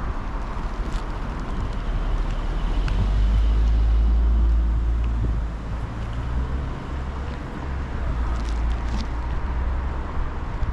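Strong typhoon wind rumbling on the microphone over city street noise, with a car passing that swells and fades in the middle.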